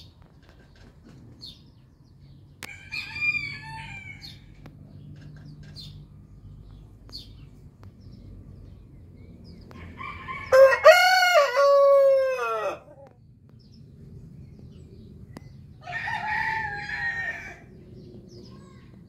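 Roosters crowing: a short call about three seconds in, a loud full crow about ten seconds in, and a second, quieter crow near the end.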